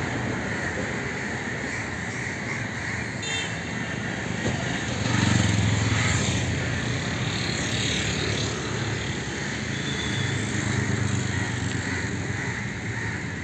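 Steady outdoor traffic noise, swelling for a couple of seconds about five seconds in as a vehicle goes by.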